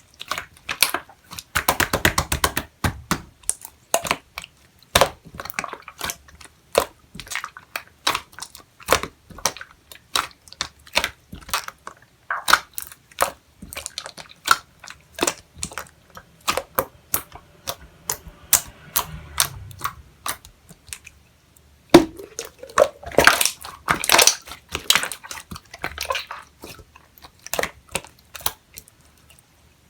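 Red clear slime being squished and pressed by hand, giving irregular sharp clicks and pops, busiest about two seconds in and again in a run of louder pops near the end.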